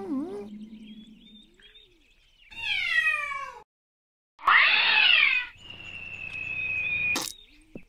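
Cartoon cat yowls with sliding, falling pitch, then a louder rough screeching caterwaul about four and a half seconds in. A long steady high tone follows and is cut off by a sharp hit near the end.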